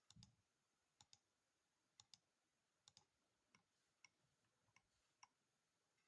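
Faint computer mouse clicks, about ten in all, several in quick press-and-release pairs, spaced irregularly as lines are clicked away with a CAD trim tool.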